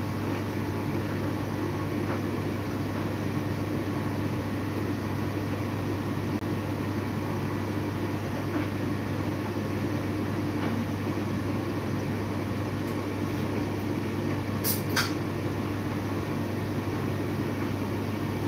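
Steady low mechanical hum of a running appliance, with two brief faint clicks close together about fifteen seconds in.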